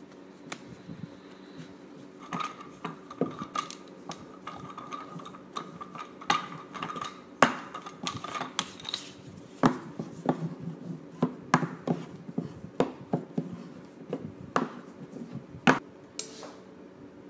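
Wooden rolling pin rolling out shortcrust pastry on a floured wooden board, with irregular knocks and clatters as the pin and dough are worked and handled.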